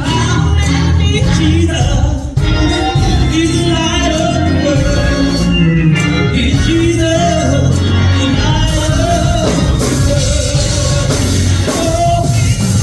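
Singing over live instrumental accompaniment with a strong, steady bass, at a steady loud level.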